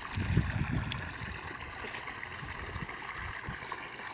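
Outdoor ambience beside a rice-field irrigation ditch: a steady hiss like trickling water, with low rumbling thumps in the first second.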